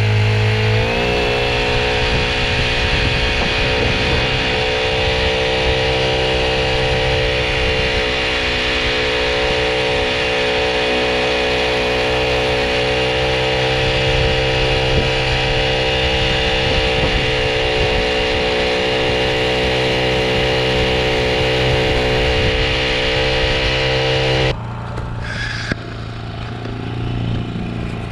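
Honda GX50 air-cooled 50cc four-stroke outboard running under way on a kayak, its pitch rising about a second in as it throttles up and then holding steady. About 24 seconds in the steady engine sound drops abruptly to a quieter, rougher one.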